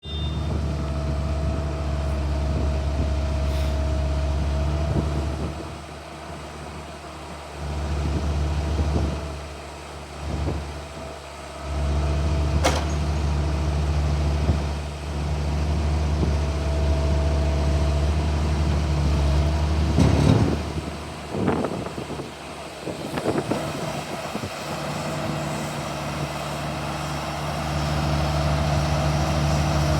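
Diesel engine of a Volvo ECR50D compact excavator running with a steady low note. It drops quieter twice in the first half and comes back up, with a few sharp knocks about two-thirds of the way through.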